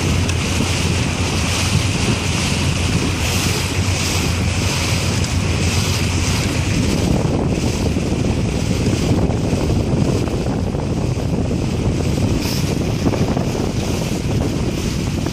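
Heavy wind noise on the microphone, a loud steady rumble and hiss, over the water sounds of a dragon boat being paddled.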